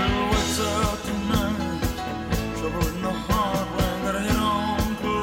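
Background rock-style song with a steady drum beat and a sung melody.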